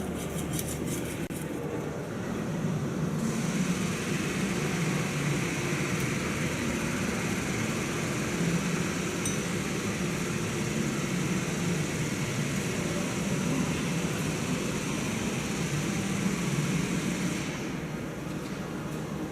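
Steady running noise of a train engine. A brighter hiss joins about three seconds in and drops away near the end.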